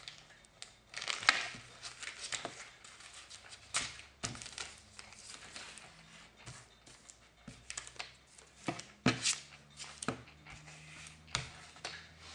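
Plastic packaging crinkling and rustling as fingerboard parts are unwrapped by hand, with irregular light clicks and taps of the small parts on a table, sharpest about a second in and near the three-quarter mark.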